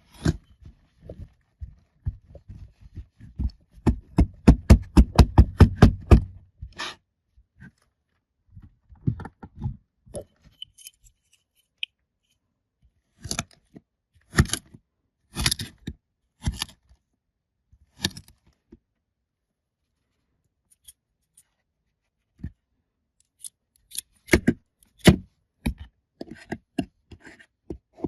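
Scissors snipping and cutting open packaging: a fast, even run of about six cuts a second a few seconds in, then scattered crisp snips and scrapes with pauses between.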